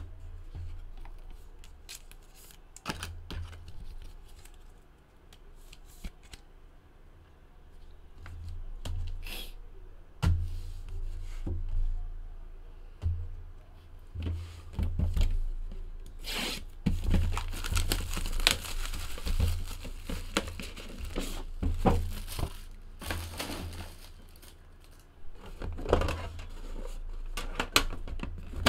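Trading-card packaging being torn and crinkled open, with a denser stretch of rustling tearing about two-thirds of the way through, among many small clicks, knocks and table thuds as the box and tin are handled.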